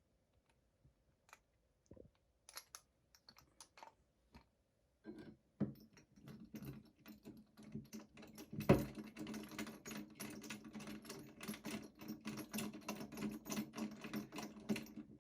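Small metallic clicks and scraping from hand tools on a pistol slide as a front night sight screw is driven in: a few scattered clicks at first, then a rapid, continuous run of clicks from about five seconds in.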